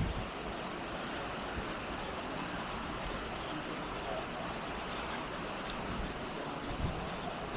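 Steady rushing background noise, with a couple of faint low thumps near the end.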